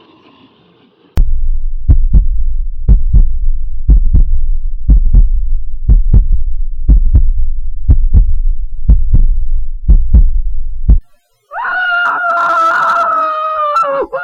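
Heartbeat sound effect: paired thumps about once a second over a low rumble, which stops abruptly after about ten seconds. A long, high scream with a slightly falling pitch follows.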